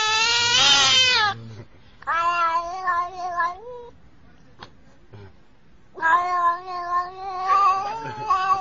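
Domestic cat giving three long, drawn-out meowing yowls that waver in pitch, with short quiet gaps between them: the first ends about a second in, the second runs from about two to four seconds in, and the third starts about six seconds in.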